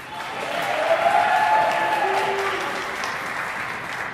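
Audience applauding, building to its loudest about a second in and slowly tapering off.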